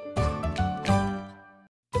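Background music with distinct plucked or struck notes. It breaks off to silence about 1.7 seconds in and comes back just before the end.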